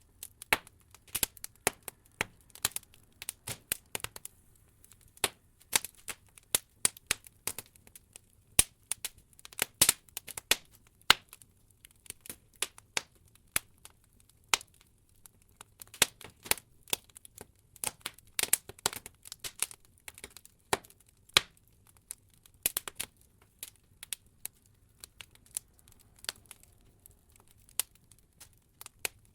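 Wood logs burning in an open fireplace, crackling with irregular sharp pops and snaps, some coming in quick clusters.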